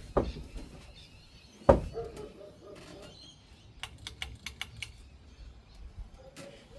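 Pull-chain switch of a ceiling fan being tugged to change to high speed: a sharp knock near the start and a louder click a little under two seconds in. A quick run of light ticks follows about four seconds in, over the faint low rumble of the fan running.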